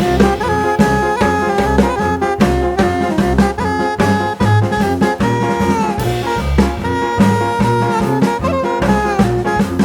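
Background music: an upbeat jazz or swing tune with horns over a steady bass and drum beat.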